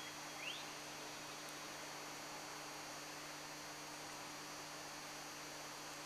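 Steady low hum over a faint even hiss, with one short rising chirp about half a second in.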